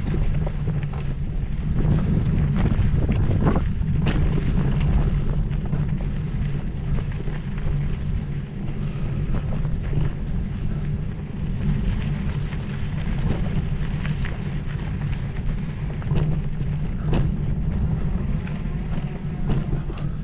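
Steady low rumble of wind buffeting the microphone, with scattered knocks and rattles every second or two.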